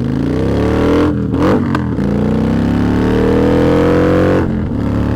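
Motorcycle engine accelerating away from a stop, its pitch climbing. About a second in the shift from first to second misses into neutral, with a rough break before the revs climb again in gear. The pitch drops again near the end.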